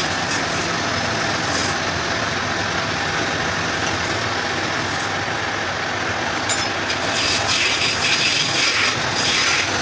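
Wood lathe running with a turning tool working the spinning wood: a steady rushing, scraping noise that turns rougher and more uneven from about seven seconds in.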